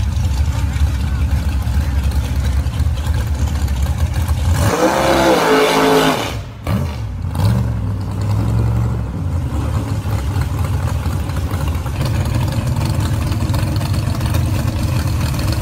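Drag-race engines rumbling at idle. About five seconds in, a loud rev climbs in pitch and cuts off sharply, and then the engines rumble on steadily.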